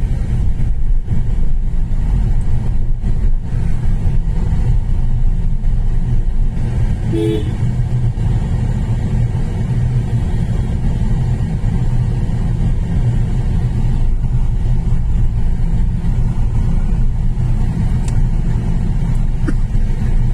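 Steady low rumble of a road vehicle on the move, engine and road noise, with one short beep about seven seconds in.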